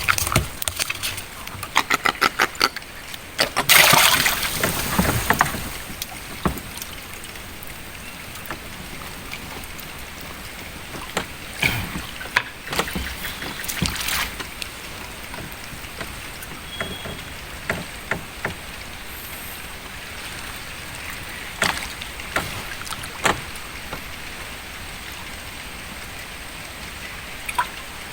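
Water splashing and sloshing around a small boat, with a loud splash about four seconds in, then a steady hiss of moving water or light rain with scattered clicks and knocks.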